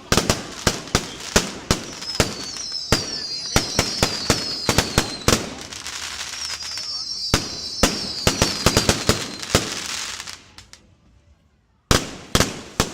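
Fireworks display: rapid, loud bangs over a continuous crackle, with a high wavering whistle running through the middle. The barrage thins out about eleven seconds in, then a few more bangs go off near the end.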